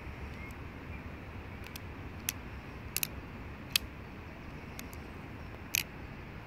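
Benchmade Foray 698 folding knife being opened and closed by hand, its blade and AXIS lock snapping with a series of short sharp clicks at uneven intervals, the loudest near the middle and near the end.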